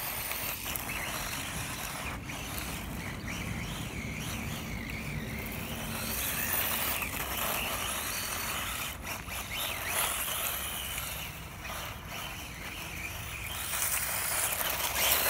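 1/16-scale ZD Racing Raptors BX-16 electric RC buggy, with a brushless motor, driving over fine gravel and rough asphalt: a steady noise of tyres rolling on grit, with a few short clicks, swelling a little as it passes closer.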